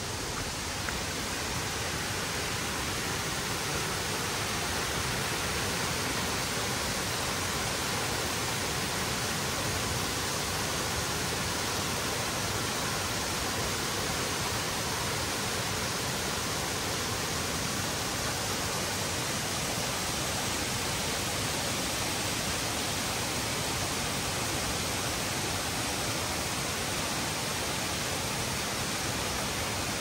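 Small waterfall cascading over rock ledges into a pool: a steady rush of falling water, growing a little louder over the first few seconds.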